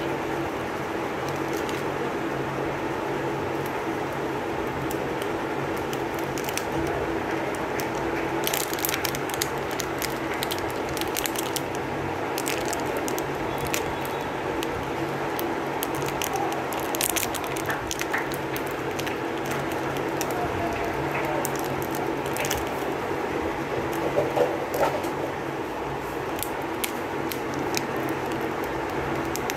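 Clear cellophane wrappers on lollipops crinkling in scattered bursts as they are handled, over a steady background hum.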